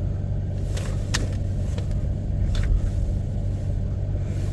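A 4x4 vehicle's engine running steadily in four-wheel-drive low range as it backs up, a low rumble with a few light clicks.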